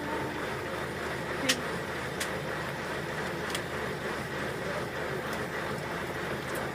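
A vehicle driving on a rough dirt road: steady engine and road noise, with a few sharp knocks or rattles.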